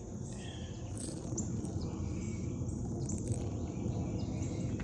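Outdoor ambience: a steady low rumble with scattered short, high bird or insect chirps.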